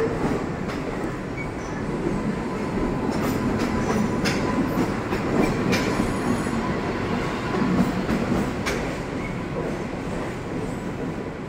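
An AC electric multiple-unit local train running past as it pulls away, a steady rumble of its coaches with scattered clicks from the wheels on the track and a faint steady whine. The sound eases off near the end as the last coach goes by.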